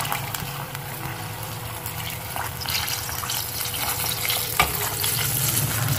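Chicken pieces frying in oil in a steel pot over a low flame while yogurt is poured in from a bowl and scraped out with a spoon, with a couple of light clicks from the spoon.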